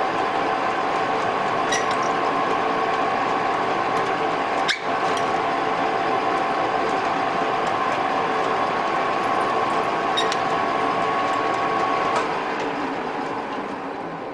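Metal lathe running with a steady whine while a drill bit just under 6 mm bores into a small part spinning in the chuck, with one sharp click a little under five seconds in. About two seconds before the end the whine cuts out and the sound fades as the chuck coasts down.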